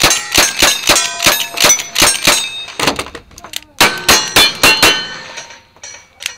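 Rapid gunshots at close range, each followed by the ring of a struck steel target: a fast string of shots about three a second, a pause of about a second and a half with light clicks while the shooter switches guns, then another quick run of shots.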